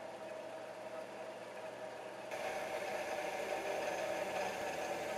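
DMM 1 kW AC servo motor driving the milling machine's spindle through a belt and pulley, running with a steady hum. About two seconds in it gets suddenly louder as its speed is raised toward 5,000 RPM.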